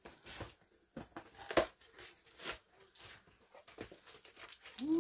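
Cardboard box being opened by hand: packing tape pulled and torn and the cardboard top scraped and rustled, with a cutter slitting the tape near the end. Irregular crackles and scrapes, the loudest about a second and a half in.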